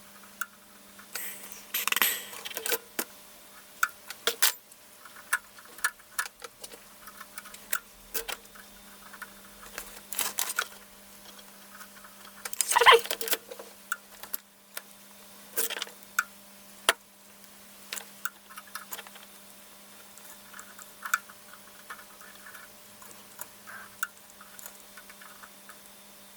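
Scattered sharp clicks and short scrapes of small hand tools working on a motherboard, over a steady low hum.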